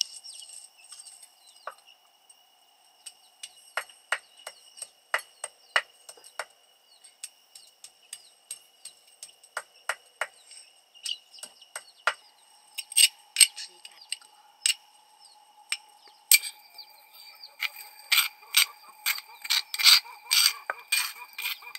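A steady high insect drone runs under irregular sharp clicks and clinks. The clicks come much thicker over the last several seconds, where the drone also grows stronger and slightly lower.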